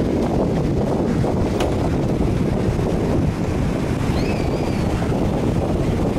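Wind buffeting the microphone, a steady low rumble, mixed with the wash of choppy water. A faint high chirp about four seconds in.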